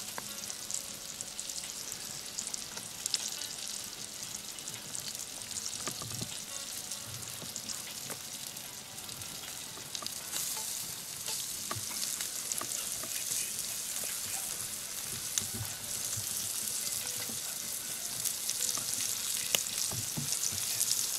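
Flour-dredged small bream (silver bream) frying in oil in a large aluminium pan over a campfire: a steady sizzle with scattered sharp pops, a little stronger in the second half.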